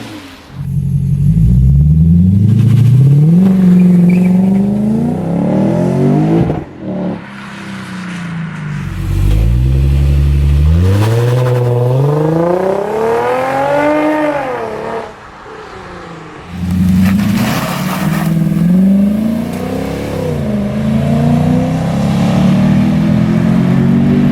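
Lexus IS sedan with an aftermarket exhaust launching hard at full throttle, its engine revs climbing and dropping back at each upshift, with several such accelerations in turn.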